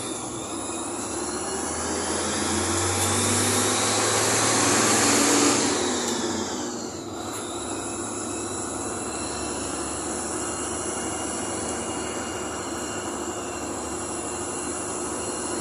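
Engine and road noise of a moving bus, heard from inside. It swells to its loudest about five seconds in, then falls back to a steady run with a faint high whine.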